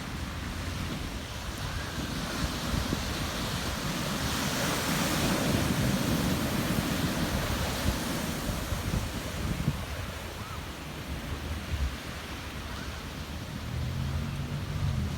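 Ocean surf washing in, swelling to its loudest about four to eight seconds in as a wave breaks, then easing off. Wind buffets the microphone throughout.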